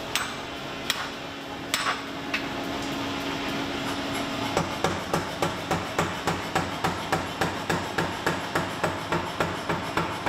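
A few separate sharp metal strikes, then from about halfway a power hammer pounding a hot steel axe blank in a steady run of about three to four blows a second, over a steady machine hum.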